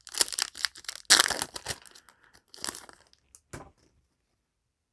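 Foil booster-pack wrapper crinkling and tearing as a Yu-Gi-Oh! pack is opened, a run of short rustles that stops about three and a half seconds in.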